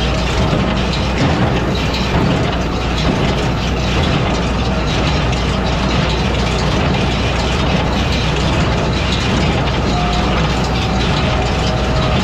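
International 585 tractor pulling a Massey Ferguson 12 square baler through hay, the engine and the baler's machinery running steadily and loudly.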